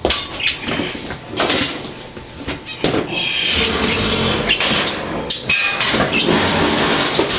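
Scraping, knocks and rattles of a Kenmore HE4t clothes dryer's metal parts being handled, as it is put back together after the belt was refitted on its tensioner.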